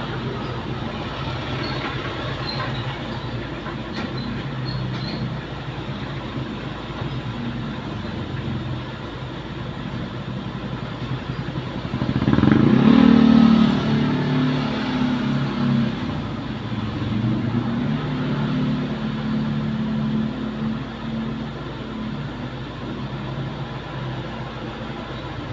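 Road vehicle engine noise running steadily, with one louder vehicle rising and passing about halfway through, then fading.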